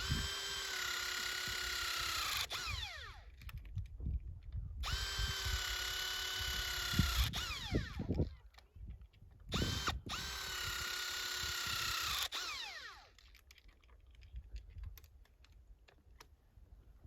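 Battery-powered tool's motor whining in three runs of about two and a half seconds each, each one winding down in pitch as it stops, with a brief blip just before the third run.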